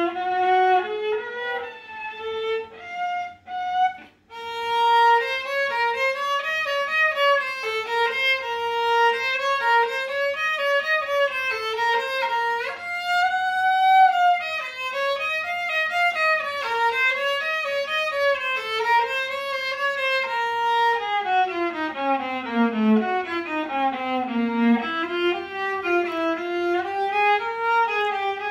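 Solo violin playing an étude: running bowed notes in quick succession, with a short break about four seconds in and a passage that descends into the instrument's low register later on.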